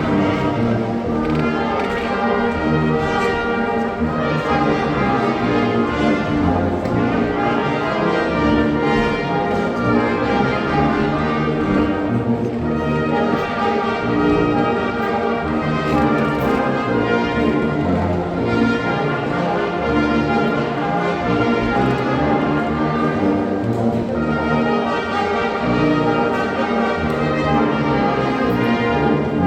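Sierra Mixe banda filarmónica, a Oaxacan village brass band, playing a piece in full ensemble with sustained chords and moving melody lines, at a steady, fairly loud level.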